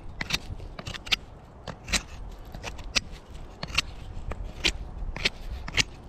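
Knife carving a point onto a stick of dead wood to make a tarp stake: a series of short, crisp shaving scrapes, roughly one a second, with smaller crackles between.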